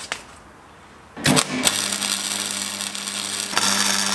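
Angle grinder running against a steel bumper reinforcement bar, throwing sparks as it strips paint off where the bar is to be welded. It starts about a second and a half in after a brief knock, with a steady hum under a harsh high hiss, and grows louder a little before the end.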